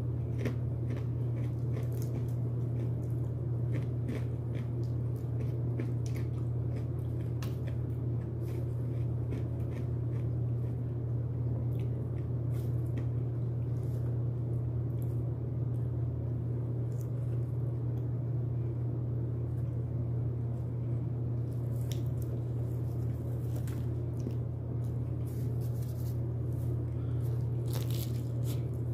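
Close-up eating of crispy broasted chicken: irregular crunching bites and chewing, over a steady low hum.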